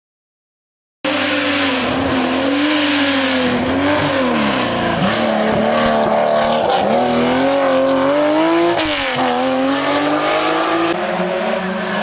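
Porsche 911 rally car's air-cooled flat-six engine revving hard through a corner, its pitch rising and falling and dropping sharply twice as the driver lifts and shifts, with tyre noise. It starts abruptly about a second in, and near the end gives way to a quieter, lower engine sound.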